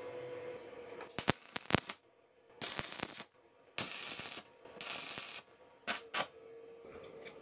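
Electric angle grinder mounted in a bench stand, running with a steady hum, while a metal piece is pressed against it in about five short grinding bursts, each under a second, with sharp metallic clicks in the first.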